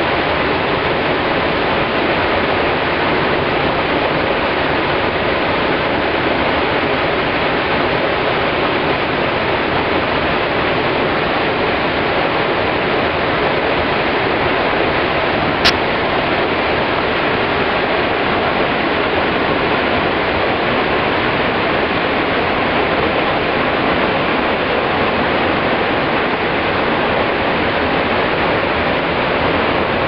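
Waterfall crashing onto rocks at close range: a loud, steady rush of falling water and spray. One brief sharp click about halfway through.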